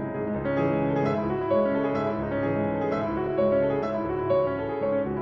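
Steinway concert grand piano played in a classical solo piece: a continuous flow of sustained notes, with new notes struck about once or twice a second.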